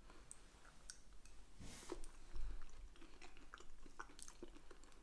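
Faint chewing and small wet mouth clicks of someone eating a soft apple mousse and compote pastry from a spoon, with one louder smack just before two seconds in.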